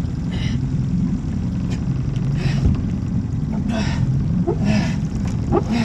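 Small lobster boat's engine idling steadily, with several short splashing hisses as line is hauled over the side and a trap is drawn up from the water.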